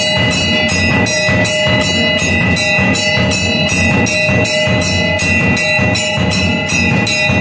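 Rhythmic percussion music: a drum and a high metallic percussion beat, about three strikes a second, over steady held ringing tones.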